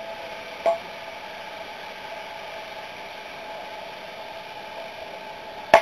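Steady outdoor ballfield hiss with a small click about a second in, then one sharp, loud crack near the end from the play at home plate in a baseball game.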